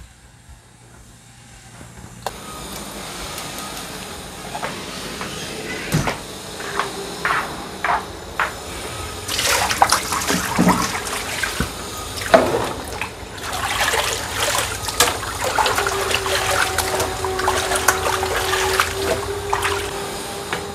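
Water running steadily, starting about two seconds in, with scattered knocks and clatter over it. A steady hum joins it for a few seconds near the end.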